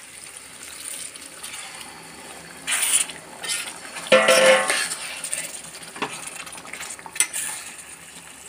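Water poured into a steel pot of frying chicken curry, then a perforated steel spoon stirring and knocking against the pot over a steady sizzle. There are loud metal clanks about three and four seconds in, the second one ringing, and lighter clicks later.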